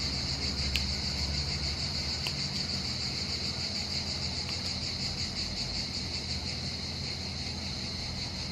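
Steady, high-pitched chirring of insects, with a couple of faint small clicks from a plastic case being handled.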